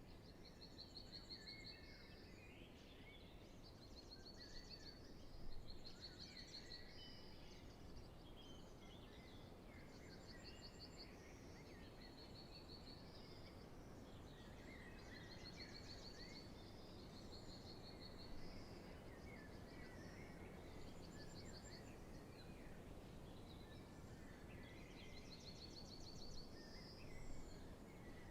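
Faint spring dawn chorus of many songbirds singing at once. Short trills repeat high up again and again, and other songs weave in lower down, over a steady low background noise.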